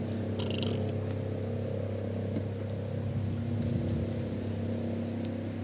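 Insects trilling steadily at a high pitch, over a low steady hum.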